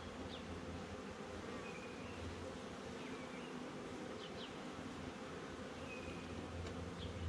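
Honey bees buzzing steadily, a dense hum from many bees flying around an open hive.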